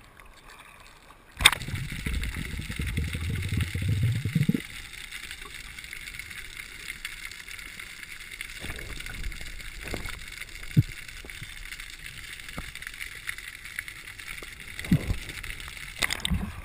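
A diver duck-diving into the sea: a sudden splash and about three seconds of water rushing over the camera. Then the muffled hiss of the camera underwater with a few short knocks, and splashing near the end as it comes back to the surface.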